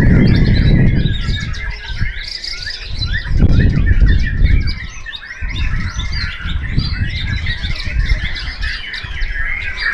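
Many white-rumped shamas (murai batu) singing at once, a dense jumble of overlapping chirps and whistles. A low rumble is loudest in the first second and comes back around three and a half seconds in.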